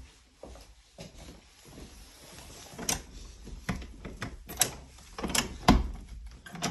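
Interior door being worked open by its recessed pull: a run of irregular clicks and knocks, with a heavier thump near the end.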